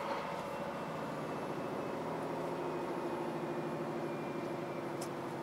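Scania truck's diesel engine running at a steady speed with an even hum, heard from inside the cab while driving.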